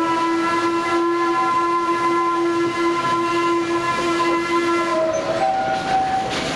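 Steam locomotive whistle blowing one long, steady chord, which cuts off about five seconds in, followed by a shorter, higher tone that steps up once in pitch.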